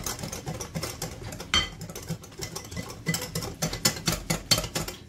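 Wire balloon whisk beating semolina cake batter in a glass bowl: quick, irregular clicks and scrapes of the metal wires against the glass, coming faster and louder in the second half.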